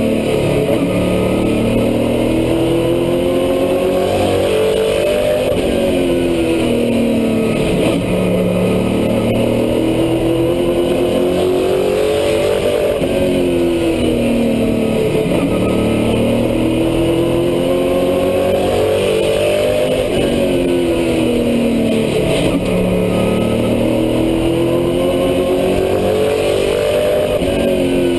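Super truck's V8 race engine heard from inside the cab at speed. It climbs in pitch under full throttle down each straight and drops as the driver lifts into the turns, about every 6 to 7 seconds, lap after lap.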